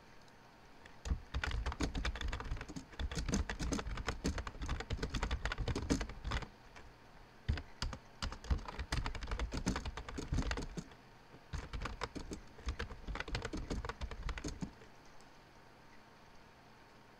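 Typing on a computer keyboard: rapid runs of keystrokes with brief pauses between them, stopping near the end.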